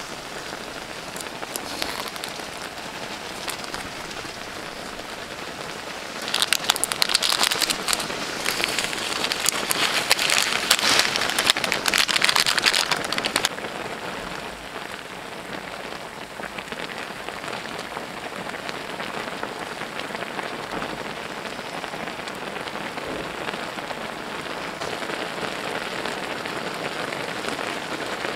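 Sauce and instant noodles bubbling and sizzling in a wide pan, a steady fine crackle. Between about six and thirteen seconds in, the crackling gets louder and denser.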